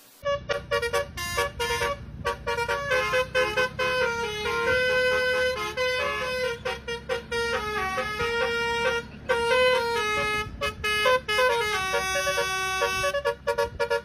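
A basuri-type telolet horn on a tour bus plays a fast melody of quickly changing notes over the low rumble of the bus and traffic. It starts abruptly just after the opening.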